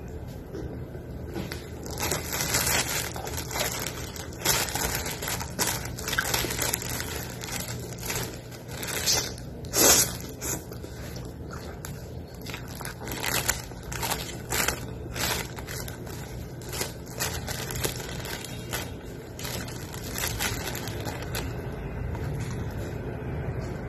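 Thin plastic food bag crinkling and rustling in irregular bursts as noodles are eaten from it with chopsticks, with chewing between the rustles. The loudest crinkle comes about ten seconds in.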